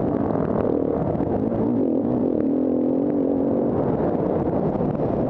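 Engine of a KTM 350 Six Days enduro motorcycle, a single-cylinder four-stroke, running under throttle as the bike is ridden. Its pitch shifts early on, holds steady for a second or so around the middle, then changes again.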